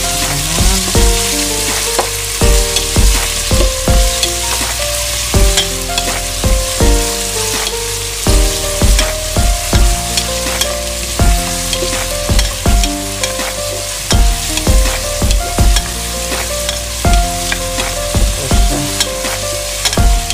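Sliced onions sizzling in hot oil in a pot, stirred with a spoon that knocks against the pot again and again.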